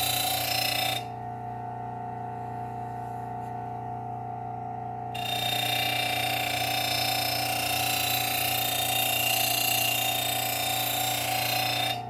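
Work Sharp Ken Onion Elite belt sharpener running with a steady motor hum, while a steel mulching mower blade is ground on the abrasive belt, giving a loud hiss. The grinding stops about a second in and starts again after about five seconds, running until just before the end.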